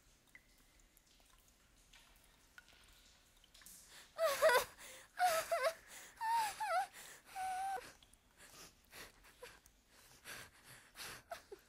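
A woman whimpering: four short, high, wavering cries in a row, a few seconds in, with faint rustling after them.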